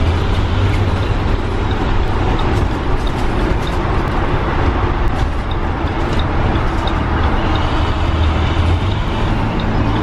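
School bus driving at a steady speed, heard from the driver's seat: a low, steady diesel engine drone with road and tyre noise, and a few faint rattles.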